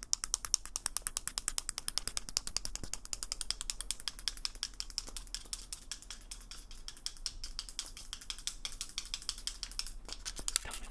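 Rapid, even clicking from a small round wooden object turned and twisted in the hands, like a ratchet or winding mechanism.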